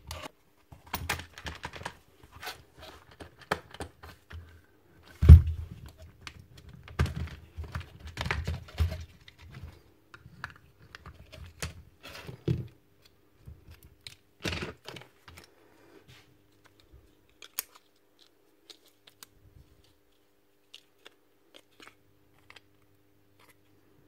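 Bosch GSB 18V-55 drill's plastic clamshell housing being taken apart with a screwdriver: a run of plastic clicks, rattles and knocks, with one sharp knock about five seconds in. The clicks thin to scattered small ticks in the second half.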